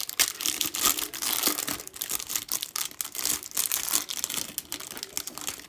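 A trading card pack's wrapper being torn open and crinkled: a dense, continuous crackle.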